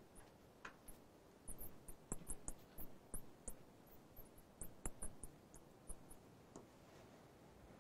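Faint, irregular squeaks and taps of a marker writing on a lightboard, in short separate strokes.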